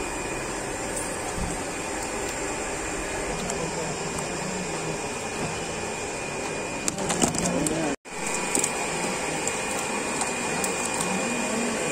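Steady whirring of an aeration blower or air pump running on biofloc fish tanks, with faint voices in the background. A few short clatters or splashes come about seven seconds in.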